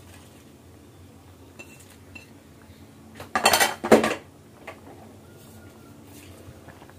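A ceramic plate clinking against a cooking pot as spring onions are tipped off it into the soup: a few light clinks, then a louder clatter of several quick hits about three and a half seconds in.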